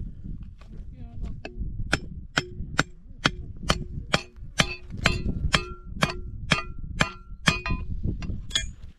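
Metal struck over and over in a steady rhythm, two to three sharp clangs a second, each with a short ringing tone.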